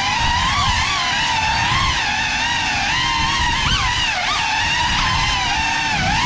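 FPV quadcopter's brushless motors and propellers whining, the pitch wavering up and down with the throttle, with a couple of quick sharp rises about four seconds in, over a low rumbling noise.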